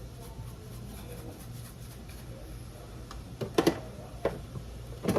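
A few short knocks and clatters of kitchen items, such as seasoning containers being handled, over a steady low hum; the loudest knock comes about three and a half seconds in.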